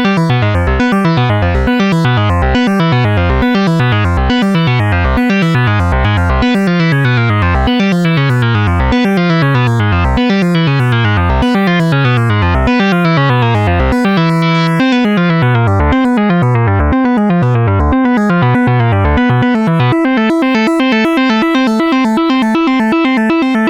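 Electronic keyboard music: a repeating synthesizer note whose low pitch falls on each stroke, about one and a half strokes a second. Around fourteen seconds in it briefly holds a steady chord, and from about twenty seconds the bass drops out, leaving a steadier higher pattern.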